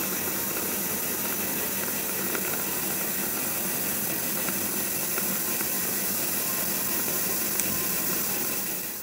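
Steady, even hiss of dental surgery equipment while a contra-angle implant handpiece drives a dental implant into the jaw.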